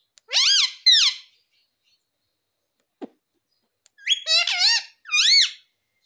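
Indian ringneck parakeet calling: two high, squeaky calls that rise and fall in pitch, a pause, then a second quick run of calls near the end.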